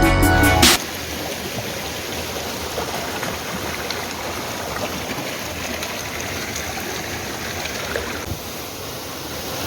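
Steady rush of flowing water from a river with waterfalls, after electronic background music cuts off just under a second in.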